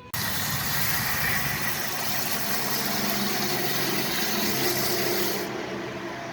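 Water spraying hard from a hose as carburetor parts are rinsed off: a steady loud hiss with a faint low hum under it, turning duller near the end.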